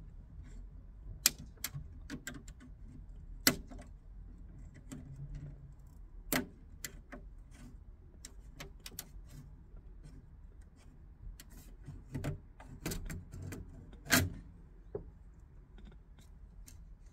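Irregular clicks and snaps, some sharp and loud, as the old rubber window seal is pried and pulled out of the top of a Fiat 126 BIS door frame.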